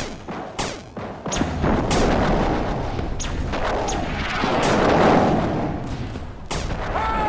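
Sci-fi laser-gun sound effects in a battle: a rapid run of blaster shots about every half second, with a longer rumbling blast swelling up around the middle.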